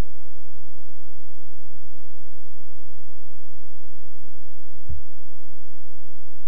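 Steady low electrical hum, with a single brief low thump about five seconds in.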